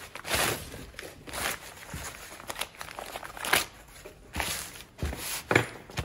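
Sheets of paper rustling and crinkling as gloved hands handle them and spread them out, in a string of irregular short rustles.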